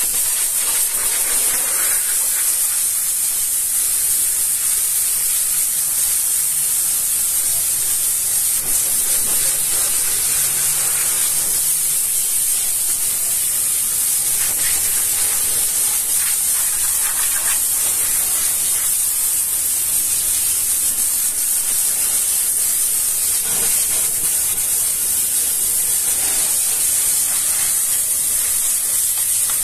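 High-pressure washer wand spraying a water jet onto a truck's diesel engine and exhaust pipework: a steady, high hiss.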